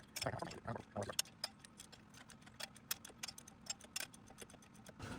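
Fast, irregular light clicks and ticks of hand tools working the flywheel bolts, sped up.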